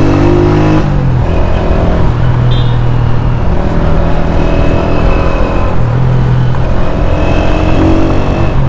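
Honda CG 125's single-cylinder four-stroke engine running while the bike is ridden, heard from the saddle over a rush of road and wind noise. The engine note drops about a second in, holds steady, then rises and falls again later as the throttle is worked.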